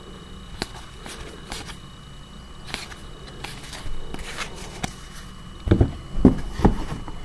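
Magic: The Gathering trading cards being flipped and slid one past another in hand, a scattered run of soft clicks and snaps from the card edges. Three louder low knocks come close together about six seconds in.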